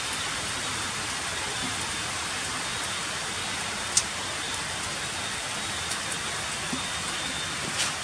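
Heavy rain falling on stone paving, a steady hiss, with one sharp click about four seconds in.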